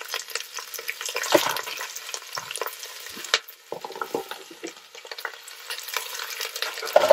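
Chopped onions and celery sizzling and crackling as they land in the hot oil of a stainless Instant Pot insert just used for searing, with a few louder knocks as pieces tumble in from a plastic container.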